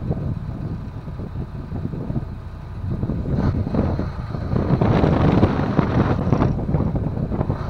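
Towboat's engine running at low speed while towing, with wind buffeting the microphone; it gets louder about three seconds in.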